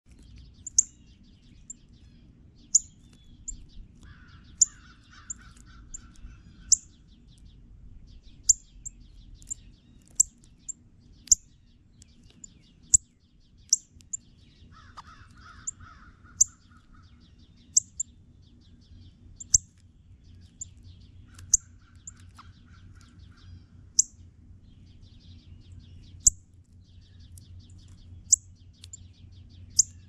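Northern cardinals giving short, sharp, high chip calls, singly or in quick pairs, roughly one a second. Three times, another bird's rough, grainy call lasting about a second and a half sounds lower down. A faint rapid trill and a steady low hum run underneath.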